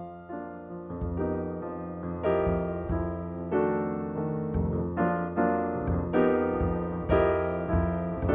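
Background piano music: notes struck about twice a second over low sustained bass notes, getting gradually louder.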